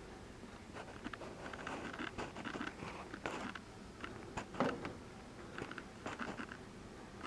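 Faint scattered rustling and crunching with small clicks, the loudest about four and a half seconds in.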